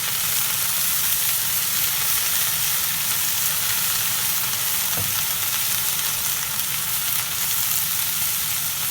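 Sliced onions and shiitake mushrooms sizzling steadily in butter in a hot pan as they sweat.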